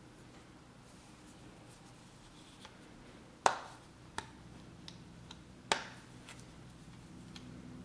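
Sharp plastic clicks and snaps from a Moerman Excelerator 2.0 squeegee handle as its adjustable head and lever are worked by hand. There are two loud snaps, one about midway and another about two seconds later, with a few lighter clicks between and after.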